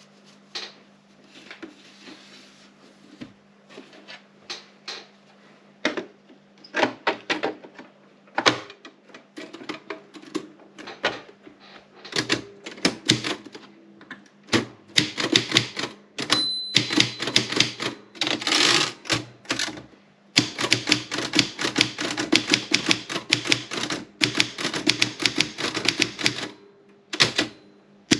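Erika 30 manual typewriter being typed on. The keys strike sparsely at first, then in fast, continuous runs with short pauses, and there is a brief high ring about halfway through.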